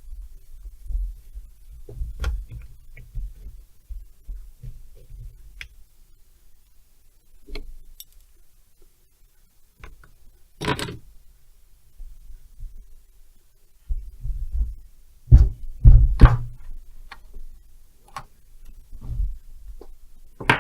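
Scattered knocks, clicks and clunks of hand tools and metal chainsaw parts being handled on a bench, with low bumps in between; the loudest knocks come a little past halfway and again about three-quarters of the way in.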